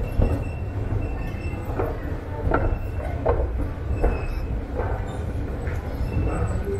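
Metro station escalator running: a steady low rumble and a faint high whine, with short knocks coming about every three-quarters of a second.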